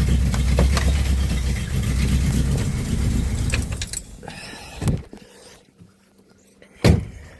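1965 Ford Thunderbird's 390 V8 idling with fuel flooding out the top of the carburetor, which the owner puts down to stuck float needles. The engine stops about four seconds in, followed by two sharp knocks.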